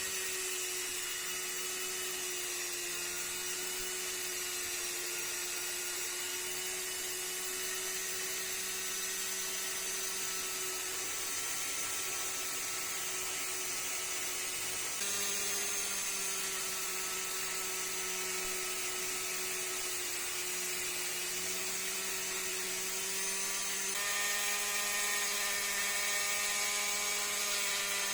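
Dremel rotary tool running at high speed with a polishing pad, buffing metal gun parts with metal polish: a steady whine. It changes pitch slightly and gets a little louder about halfway through and again near the end.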